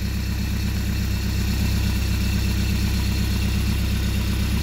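Rebuilt Mercruiser 170 3.7 L inline four-cylinder marine engine idling steadily on a run stand, exhausting through a makeshift wooden muffler; a freshly rebuilt engine just past its break-in, running smoothly.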